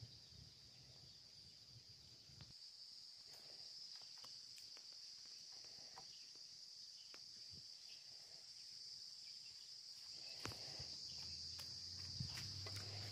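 Steady high-pitched insect drone, faint, with a few scattered soft clicks and rustles.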